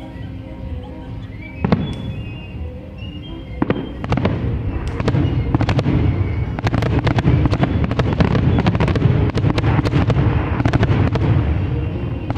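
Aerial fireworks bursting: a single bang about two seconds in and another near four seconds, then a rapid string of cracks and booms over a low rumble that lasts until near the end. Music plays underneath.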